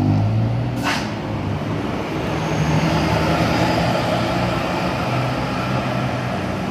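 Diesel buses passing on the road, their engines running steadily, with a short hiss about a second in.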